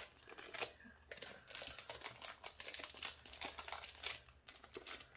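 Planner packaging crinkling in many quick, irregular crackles as it is opened by hand.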